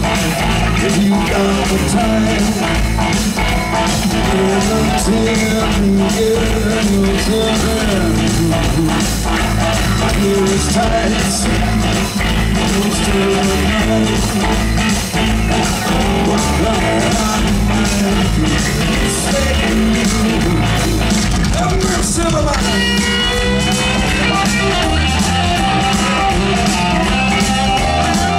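Live rock band playing a blues-boogie shuffle on electric guitars, bass and drums through a concert PA, with some singing. After about 22 seconds a high, bending lead-guitar line comes in over the rhythm.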